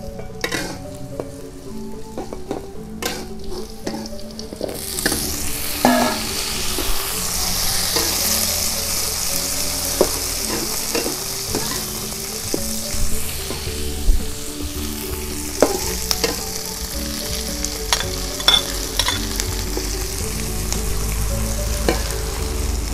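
Sliced chilies, shallots and garlic stir-frying in hot oil in a steel wok: a sizzle that grows much louder about five seconds in, with a metal spatula scraping and clinking against the wok as the food is stirred.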